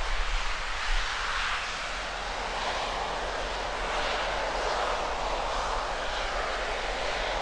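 SpaceX Starship Booster 7's Raptor rocket engines firing in a static fire test: a steady, rushing roar with a deep rumble beneath, wavering in strength.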